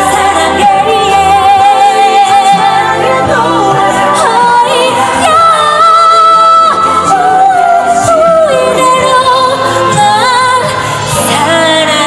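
A woman sings a pop song live over full musical accompaniment, holding long notes with vibrato and sustaining one note for over a second midway.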